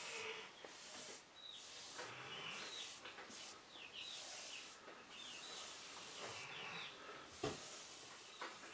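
Repeated hissy strokes of an applicator spreading Waterlox tung oil varnish over mahogany, with short high squeaks at the ends of several strokes. A single sharp knock about seven and a half seconds in.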